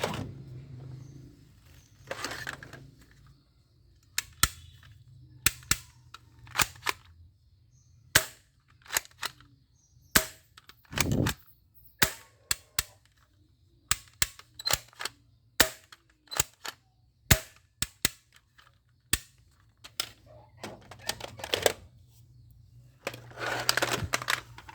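A plastic toy gun clicking as it is handled and its trigger worked: sharp single and double clicks at irregular gaps, mostly a second or so apart, with a few short rattles of plastic.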